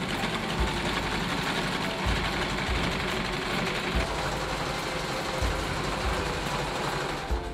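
Electric household sewing machine running steadily, stitching a long seam through flannel sheeting.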